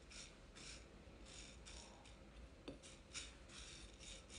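Faint swishes of dry lentils being pushed and spread across a plate by fingertips, two or three a second, while the lentils are sorted for stones and sand; one small sharp click partway through.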